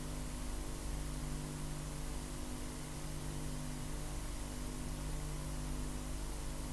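A steady low hum with a hiss over it.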